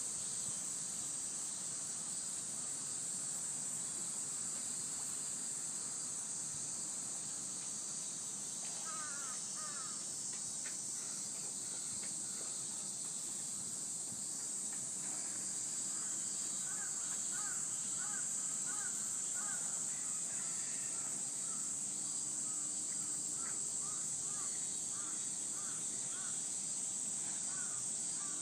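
Steady high-pitched drone of summer insects, with a bird giving short repeated calls about a third of the way in and again in a longer run through the middle.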